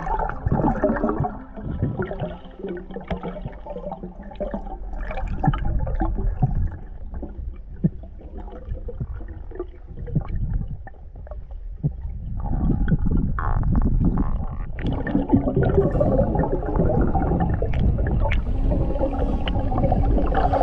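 Muffled underwater sound of a freedive: irregular rumbling and gurgling of water with scattered clicks and bubbling, growing louder and busier about twelve seconds in.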